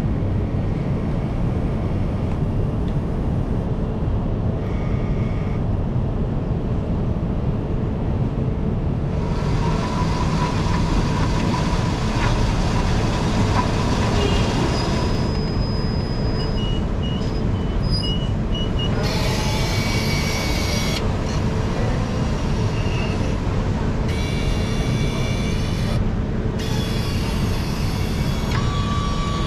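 Smoothie vending machine at work: a steady low mechanical hum throughout, with a louder whirring noise from about nine to fifteen seconds in as the cup is blended in its chamber, then several short hissing bursts near the end.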